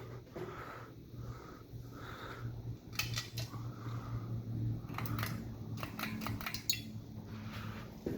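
1991 HomeTrends 52-inch ceiling fan running with a steady low motor hum. Light metallic clicks and clinks come about three seconds in and again several times in the second half.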